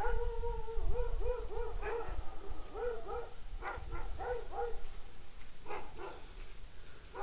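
A dog whining: one held note about a second long, then a run of short rising-and-falling whimpers, about three a second, giving way to a few sharper yips.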